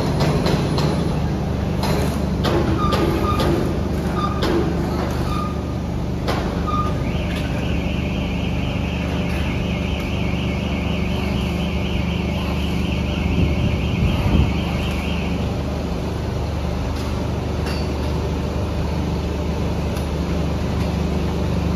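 Motor-assembly factory machinery running with a steady low hum, with metal knocks and short high clinks in the first few seconds and a long steady hiss from about seven to fifteen seconds in.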